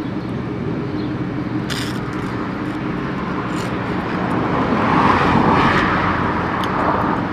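Steady low hum of a running vehicle, swelling louder for a couple of seconds about five seconds in, with a few faint clicks.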